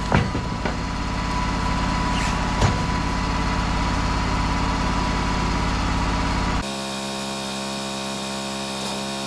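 Wood-Mizer LT35 portable sawmill's engine running steadily, with a single knock about two and a half seconds in. About two-thirds of the way through, the sound drops abruptly to a quieter, smoother hum.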